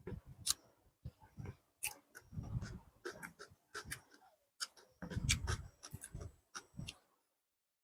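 Close-miked eating of biryani and chicken curry: chewing and wet mouth smacks in short separate bursts, with sharp clicks between them.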